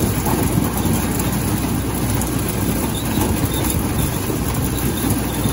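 John Deere 300 corn picker running, husked ears of corn tumbling off its elevator chute into the wagon in a steady, dense clatter.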